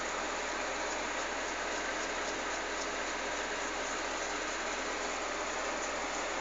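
Steady, even background hiss with no distinct sounds over it.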